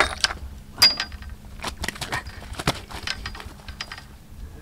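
Irregular sharp clicks and light clinks, a few a second, as a small carp is handled and unhooked in a wire-framed landing net.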